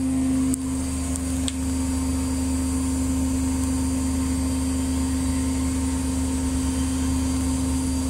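Privileg Dynamic 7660 front-loading washing machine spinning: the drum motor runs with a steady hum over a low rumble.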